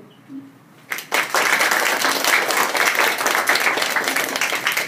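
Audience applause, starting suddenly about a second in and continuing as dense, steady clapping from many hands.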